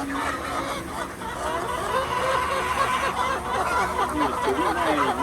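A flock of hens clucking and calling, many short overlapping calls at once, busier in the second half.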